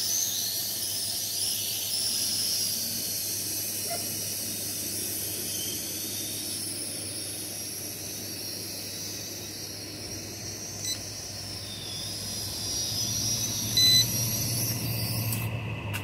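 Small multirotor drone's propellers whining at a high pitch, the tone wavering as it hovers and manoeuvres, with a brief beep near the end just before the whine cuts off.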